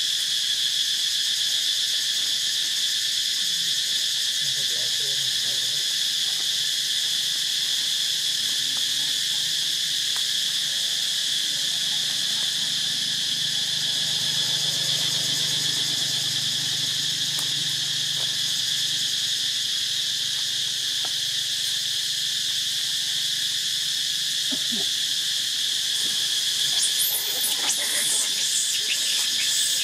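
A steady, dense chorus of insects: an unbroken high-pitched drone on several pitches at once. A few brief high chirps cut in near the end.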